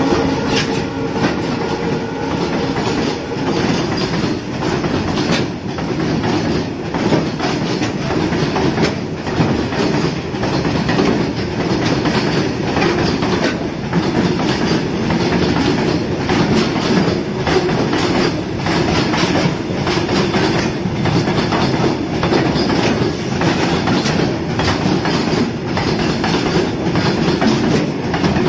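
Open-top BOXNHL freight wagons rolling past, their steel wheels clacking over rail joints in an uneven rhythm over a steady rumble. A diesel locomotive's horn note cuts off just at the start.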